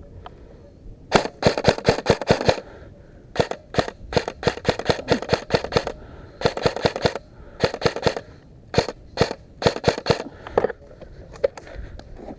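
Airsoft guns firing on full auto: several long bursts of rapid sharp shots with short pauses between them.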